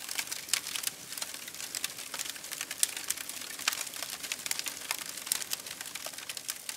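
Wood fire crackling: a dense, irregular run of sharp pops and snaps.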